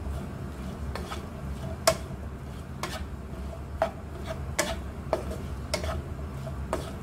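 Wooden spatula stirring and scraping chicken mince, shredded cabbage and diced capsicum in a nonstick wok off the heat, knocking against the pan irregularly about once a second. A steady low hum runs underneath.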